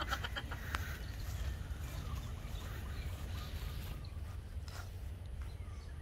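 Faint, scattered bird calls over a steady low rumble of wind on the microphone.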